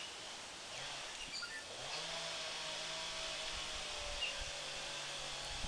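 A distant motor starts up about two seconds in with a short rise in pitch, then runs at a steady, even hum over outdoor background noise.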